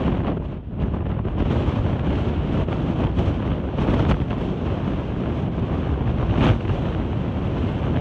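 Strong wind buffeting the microphone: a loud, steady rumble that flares in brief gusts a couple of times.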